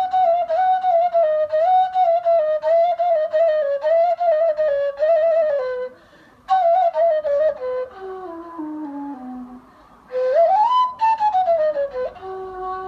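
Arabic ney (end-blown reed flute) playing an ornamented melody. The phrase breaks off twice, about six and ten seconds in. After the first break it steps down into a low register; after the second it glides quickly up and falls away again.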